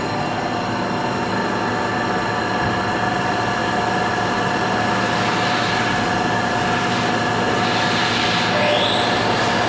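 Deckel Maho CNC milling machine running: a steady mechanical whine of several held tones over a hiss that grows slightly louder.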